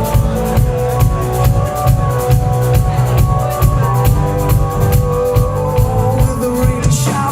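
Rock band playing an instrumental passage: drum kit keeping a steady beat under bass and held chords, with a bright cymbal-like hit near the end.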